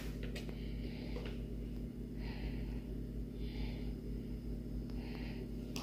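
Quiet room tone: a low steady hum, with a few faint soft rustles and light clicks.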